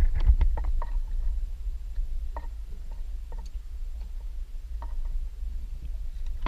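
Scattered light clicks and taps from handling a just-caught rock bass as it is unhooked by hand at the side of an aluminium boat, over a steady low rumble.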